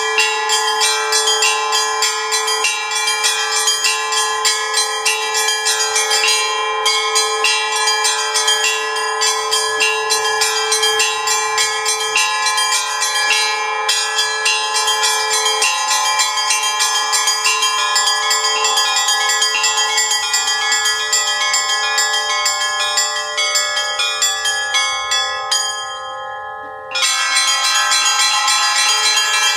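Russian Orthodox-style church bell ringing (zvon): a set of bells struck in a fast, continuous rhythmic pattern, the tones ringing into one another. About 26 s in the small high bells stop for a moment, leaving the larger bells ringing out, then the full peal comes back about a second later.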